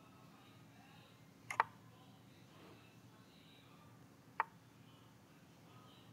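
Chess program's piece-move sound effects over a faint low hum. A quick double click comes about a second and a half in as White castles queenside, and a single click follows a few seconds later as a bishop moves.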